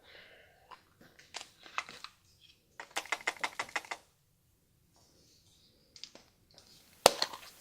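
Plastic surprise-egg packaging being handled and opened by hand: scattered light clicks and rustles, a quick run of about ten sharp plastic clicks around the middle, and one sharp snap near the end.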